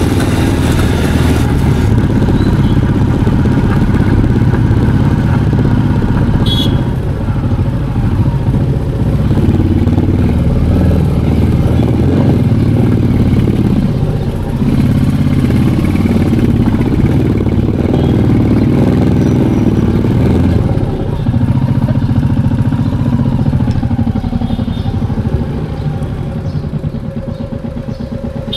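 Motorcycle engine running while the bike is ridden, its note rising and falling with the throttle and easing off somewhat near the end.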